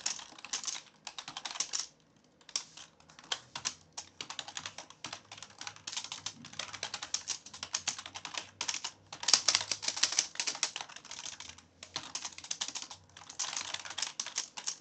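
Typing on a computer keyboard: quick runs of keystrokes with short pauses between them, the longest pause about two seconds in.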